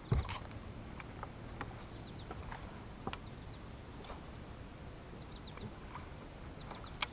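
Scattered light clicks and taps from an angler handling a casting rod and reel on a boat's bow deck, the sharpest about three seconds in and another near the end, over a faint steady high hiss.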